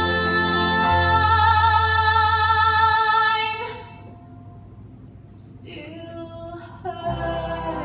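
A woman sings a musical-theatre ballad solo into a microphone over accompaniment, holding a long note with vibrato that ends about three and a half seconds in. After a short quieter lull she starts another held note, and the low accompaniment comes back in near the end.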